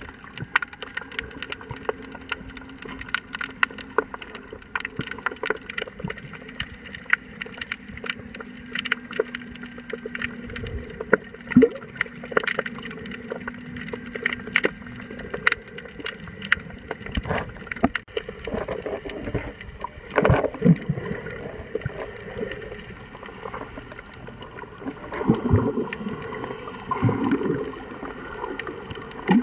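Underwater sound picked up by a camera below the surface: many scattered clicks and crackles over a steady watery hiss, with gurgling, bubbling swishes about two-thirds of the way in and again near the end.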